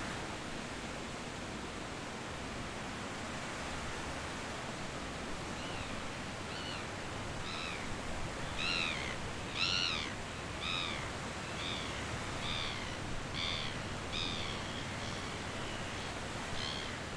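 A bird calls repeatedly over a steady rushing background: about a dozen short, arched, squealing calls, roughly one a second, starting about six seconds in and loudest near the middle.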